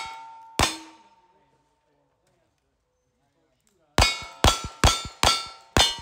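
Gunshots at steel targets, each hit leaving a short metallic ring. There is one shot soon after the start, then after about three seconds a quick string of five shots about half a second apart.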